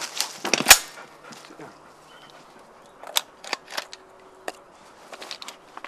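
A single loud shotgun shot about a second in, with a short ring after it. A few lighter clicks and snaps follow.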